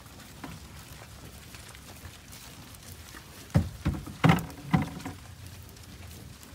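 American bison herd walking over grass, hooves lightly pattering. About three and a half seconds in comes a quick run of four loud, low sounds from a bison close by, within about a second and a half.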